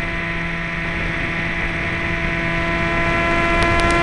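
Model aircraft's motor and propeller running at a steady pitch, picked up close by the onboard camera, slowly getting a little louder. A quick run of short crackles near the end.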